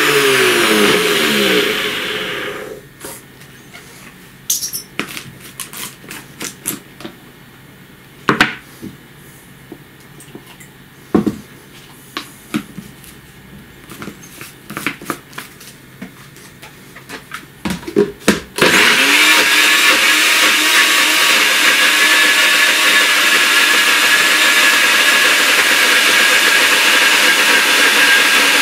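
NutriBullet blender blending sprouted grain and water into a thick dough. The motor winds down with falling pitch about two seconds in. Scattered knocks and clicks follow as the cup is taken off and put back on. About two-thirds of the way through the motor spins up again and runs steadily.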